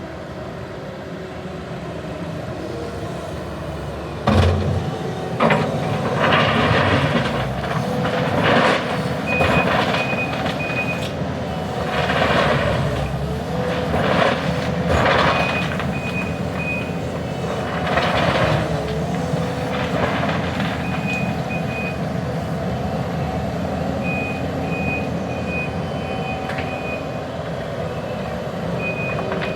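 Skid steer with a forestry mulcher working: a steady engine drone, several loud surges of noise in the first two-thirds, and a reversing alarm beeping in spells.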